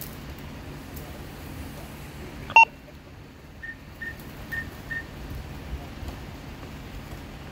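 A brief, loud electronic chirp, then four short high beeps at one pitch, about two a second.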